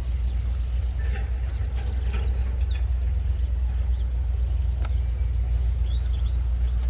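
Steady low rumble, with a few faint rustles and clicks from a nylon cast net being handled to free a fish.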